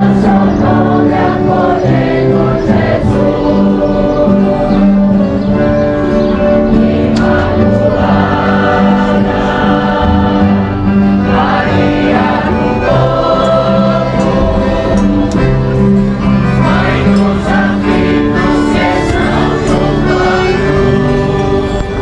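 Choir singing a hymn with instrumental accompaniment, in long held notes over a steady bass line.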